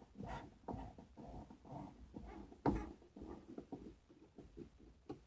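Scattered handling knocks and scrapes of a car door speaker being pushed and seated into the door, with one sharper knock about two and a half seconds in.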